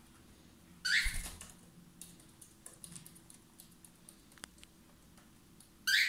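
Cockatiel giving two short, harsh calls, one about a second in and one near the end, with a low thump under the first call and faint light taps in between.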